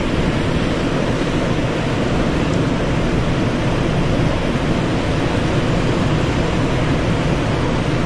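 Small waves breaking and washing up a sandy beach: a steady rush of surf, with wind rumbling on the phone's microphone.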